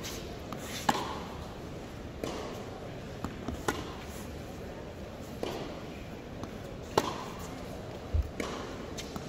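Tennis practice rally: sharp racquet strikes on the ball and ball bounces on the hard court, about one every second or so, each echoing in a large indoor arena.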